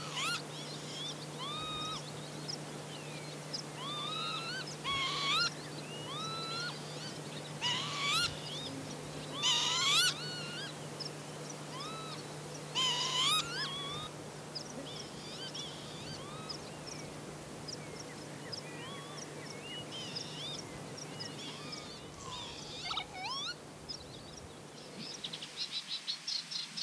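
Northern lapwings calling: repeated wheezy, slurred notes that rise and bend, loudest and most frequent in the first half and thinning out later. Near the end a rapid high twittering of other birds comes in.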